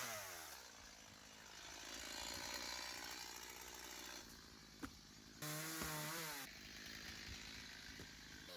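Two-stroke chainsaw engine revving up and falling back several times, with a lower steadier running between the revs and a single short knock about five seconds in.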